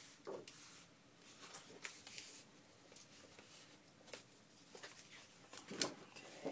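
Faint rustling and light taps of card-stock file folders being handled and lined up on a work surface, with a sharper click about six seconds in.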